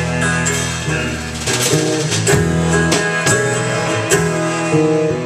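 Live band playing an instrumental passage between vocal lines: strummed guitar with other instruments and regular percussive hits, no singing.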